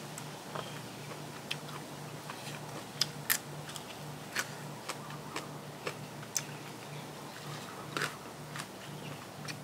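Close-miked mouth sounds of someone biting and chewing food: irregular crisp clicks and smacks, a few louder bites about three seconds in and near the end. Under them is a faint low hum that pulses on and off about twice a second.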